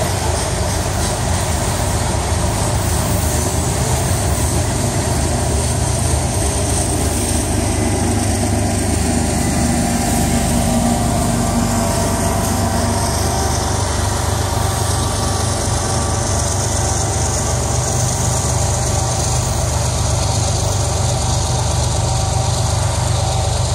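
Freight train of covered hopper cars rolling past on the rails, then a Union Pacific diesel locomotive at the rear of the train passes about halfway through, its engine running as it goes by and draws away.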